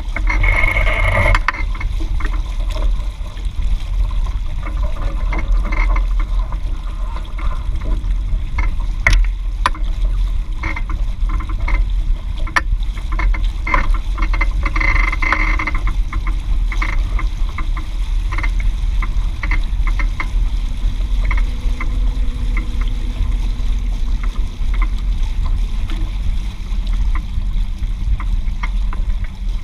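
Hobie 16 catamaran hull moving through choppy water under sail: a steady rush of water with frequent short splashes and slaps, over a deep rumble of wind on the microphone.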